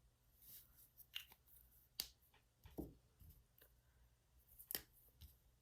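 Faint scratching of a broad-tip marker colouring on paper, with a few sharp clicks and taps.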